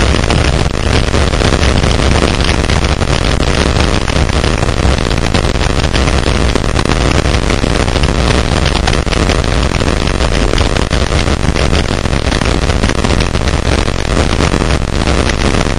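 Wind rushing over a GoPro's microphone on a mountain bike descending a dirt singletrack fast, with the bike rattling over the trail: a loud, steady rush heavy in the low end, full of small knocks.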